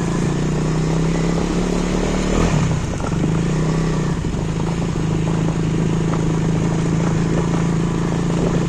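Motorcycle engine running at a steady pace while riding, with a brief dip in the engine note about two and a half seconds in.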